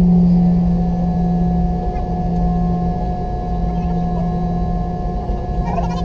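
Boeing 717's two Rolls-Royce BR715 turbofan engines running, heard as a steady low drone and a higher whine over a continuous rumble.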